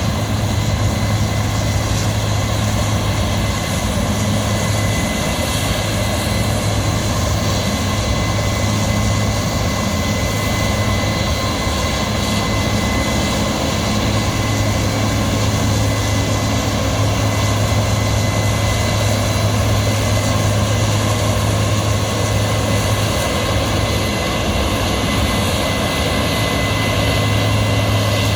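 Heavy farm machinery engine running steadily under load, a continuous loud drone with a faint steady high whine over it.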